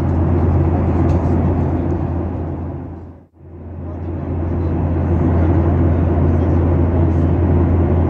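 Steady cabin drone of a Boeing 737-900ER in flight: the deep hum of its CFM56-7B turbofans and the rush of air past the fuselage, heard from a seat beside the wing. About three seconds in it fades out for a moment at an edit and then comes back.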